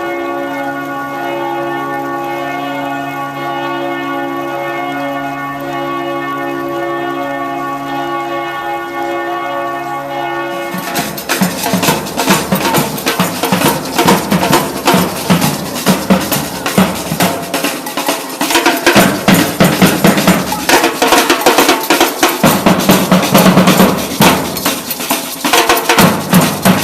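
Bells ringing, their overlapping tones hanging on with a pulsing hum. About eleven seconds in it gives way abruptly to loud percussion: drums beating a fast, dense rhythm.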